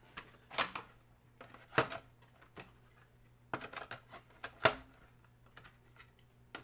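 Scattered light clicks and taps of hard objects being handled on a desk, with sharper clicks about half a second, two seconds and four and a half seconds in.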